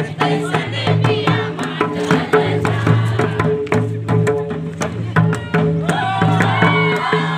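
Mandar, a two-headed barrel drum, hand-beaten in a quick folk dance rhythm, with ringing low strokes and sharp slaps. Voices sing briefly near the end.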